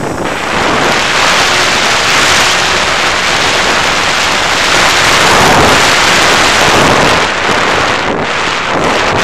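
Wind rushing over the on-board action camera's microphone as the FPV model plane flies fast and low: a loud, steady rush of noise that swells about half a second in and peaks near the middle. No motor whine stands out from it.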